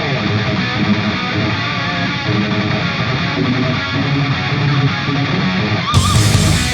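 Intro music: a steady rock track with strummed electric guitar, with a brief louder, fuller passage about six seconds in.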